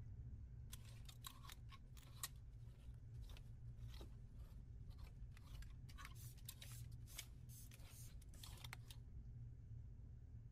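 Faint, quick ticks and rasps of a needle and thread drawn through two layers of suiting cloth during hand pad-stitching, in irregular clusters that stop about a second before the end. A low steady hum runs underneath.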